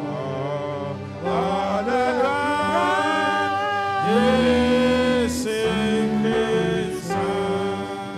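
Slow gospel worship music: sustained electric keyboard chords with a male voice singing a gliding, drawn-out melody over them, entering about a second in.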